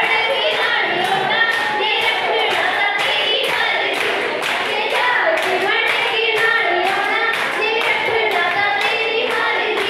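A group of women singing a folk song together over steady, rhythmic handclaps.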